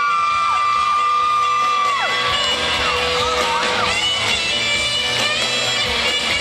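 A live band playing amplified music while fans scream, with long high held screams overlapping in the first couple of seconds.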